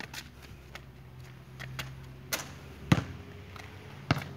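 Basketball bouncing on a concrete court: a handful of sharp thuds at uneven intervals, the loudest about three seconds in and another near the end.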